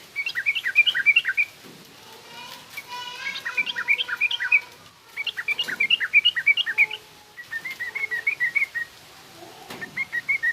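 Yellow-vented bulbul (trucukan) singing in a rough, chattering style: five quick bursts of rapid chirping notes, each a second or two long, with short pauses between them.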